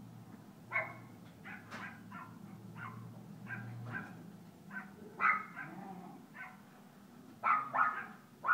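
Small dogs barking and yipping during rough play, a string of short, high-pitched barks starting about a second in and coming in quick clusters, loudest near the end.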